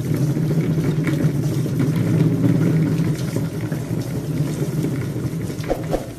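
A cat exercise wheel spinning with a steady low rumble as a cat runs inside it.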